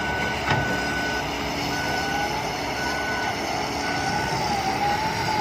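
Excavator's warning alarm beeping about once a second over the steady running of its diesel engine, with a wavering whine in the second half.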